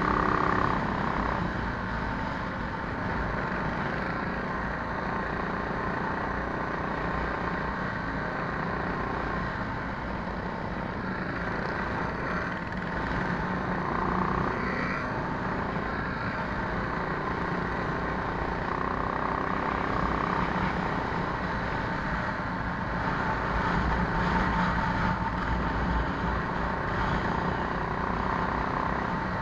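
Minibike's small single-cylinder four-stroke engine running under throttle on the move, its pitch rising and falling a little through the lap, with wind buffeting the microphone.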